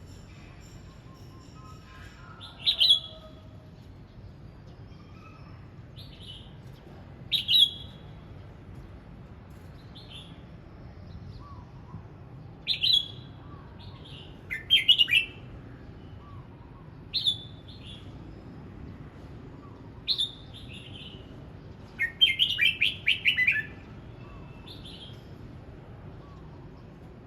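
Red-whiskered bulbul singing: short, bright whistled phrases every two to three seconds, with a quicker run of several notes near the end.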